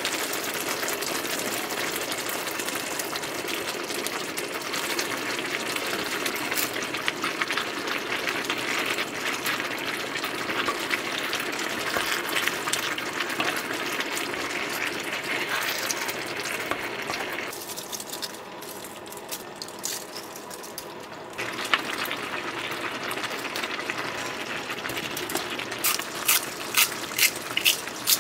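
Chicken dakgalbi with vegetables in red sauce sizzling and bubbling in a cast-iron griddle pan while a wooden spoon stirs, dropping quieter for a few seconds past the middle. Near the end, kitchen scissors snip a green onion into the pan, about two sharp snips a second.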